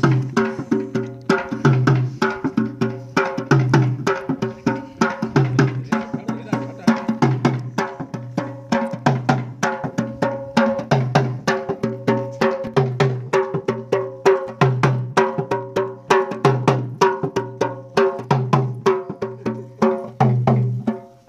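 Dhol, a two-headed barrel drum, beaten in a fast, steady folk rhythm. Deep bass strokes fall roughly once a second, with quick sharp strokes on the other head in between, over a steady held tone.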